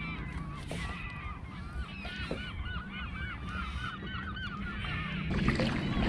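A flock of seabirds calling over and over, many short overlapping calls, over a steady low rumble. A louder rush of noise comes in near the end.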